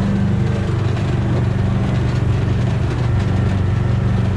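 Kubota RTV utility vehicle's engine running steadily at low speed as it drives slowly over grass, heard from the driver's seat.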